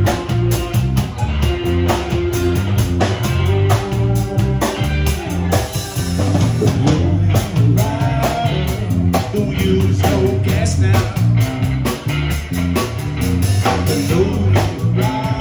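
Live band playing a groove: electric bass, keyboard, drum kit and electric guitar, with a steady drum beat and a prominent bass line.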